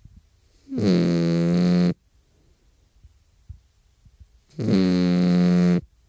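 Peruvian Hairless Dog snoring in its sleep: two loud snores about four seconds apart, each a steady humming tone lasting just over a second.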